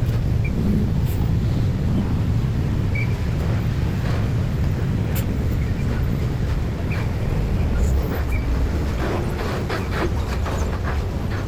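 A train passing over a level crossing: a steady low rumble, with a run of quick sharp clicks near the end.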